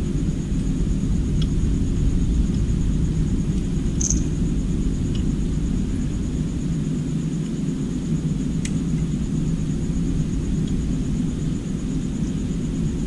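A steady low rumble with a thin, steady high whine over it, and a few faint light clicks.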